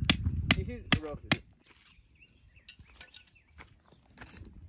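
Hammer blows on a steel rod being driven into stony ground: four sharp metallic strikes, about two and a half a second, each with a brief ring, then they stop.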